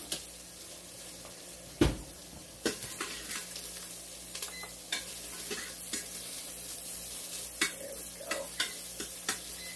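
Beef tallow sizzling faintly in the stainless inner pot of an electric pressure cooker set to sauté. Several sharp clicks and knocks from handling utensils and items at the counter sound over it, the loudest about two seconds in.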